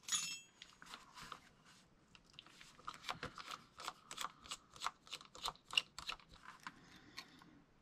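Small metal clicks and clinks from a round baitcasting reel being taken apart by hand as its side plate is removed, in a quick, uneven run of about three a second.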